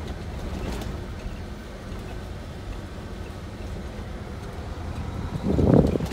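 Steady low rumble of a truck driving slowly over a rough gravel road, heard from inside the cab, with a short louder rumble near the end.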